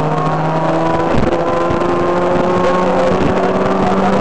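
Car engine running steadily under load, its pitch climbing slowly, with a gear change about a second in and another about three seconds in.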